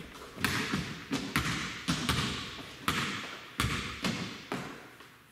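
A basketball bouncing on a hardwood gym floor, about nine irregular bounces with ringing echoes in the large hall, stopping shortly before the end.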